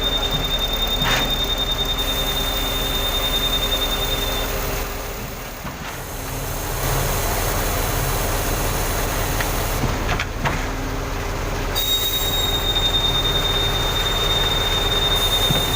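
Concrete pump truck running while pumping concrete: a steady engine hum with a pulsing low rhythm, and a thin high whine that stops about four seconds in and returns near the end.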